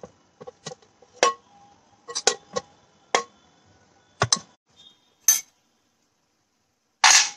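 Metal spoon and fork clinking against a glass bowl and a plate while pasta is served: about ten short, sharp clinks at irregular intervals, a few in quick pairs. A brief louder burst of noise comes near the end.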